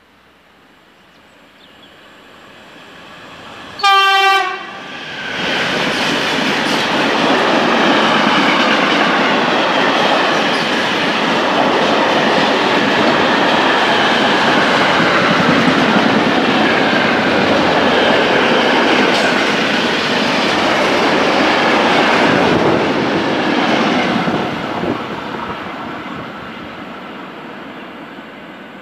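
Freight train of car-carrier wagons loaded with vans approaching and passing close by at speed, with a short horn blast about four seconds in. The loud, steady rumble and clatter of the wagons lasts about twenty seconds, then fades as the train moves away.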